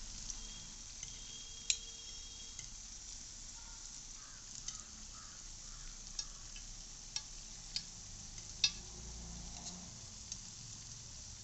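Unniyappam frying in hot coconut oil in an unniyappam pan: a steady sizzle, with a few sharp clicks of a metal spoon and skewer against the pan as the fritters are turned over.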